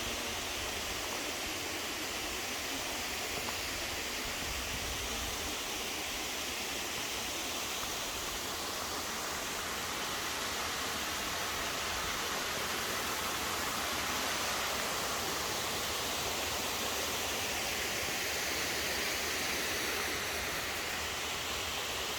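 Waterfall cascade rushing steadily, an even hiss of falling water.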